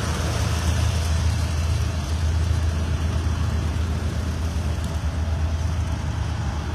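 Engines of farm tractors and trucks running as they drive out in a parade, a steady low engine sound with road noise.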